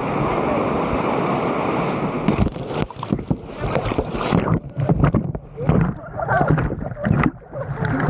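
Waterfall cascade rushing steadily, then from about two seconds in, choppy splashing and churning water with sudden muffled dips as a person slides down the cascade into the pool and the camera plunges in and out of the water.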